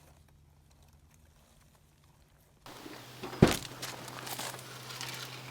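Near silence, then a low steady hum with one sharp knock and light rustling and crinkling after it.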